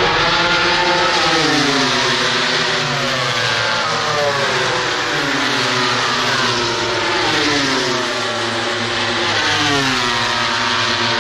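Grand Prix racing motorcycles at high revs, loud throughout, their engine note sweeping down in pitch about four times.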